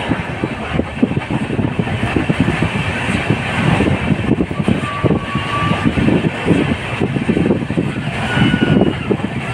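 Express train running at speed: a steady dense rumble with irregular rattling and knocking of the coach over the track, and a brief faint high tone about five seconds in.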